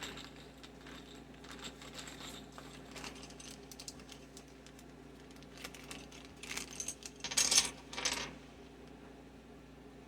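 Plastic Commodore 64 keycaps clicking and clattering as they are handled and set down, with a quick burst of rattling about seven seconds in.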